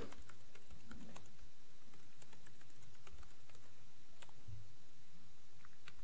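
Typing on a computer keyboard: a run of light key clicks at an uneven pace.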